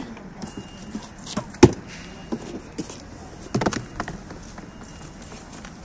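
A few sharp knocks and thumps of produce crates and boxes being handled, the loudest about a second and a half in and a short cluster at about three and a half seconds.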